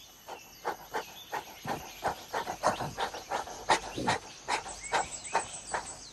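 An orangutan calling: a rapid series of short, hoarse calls, about three or four a second, growing louder.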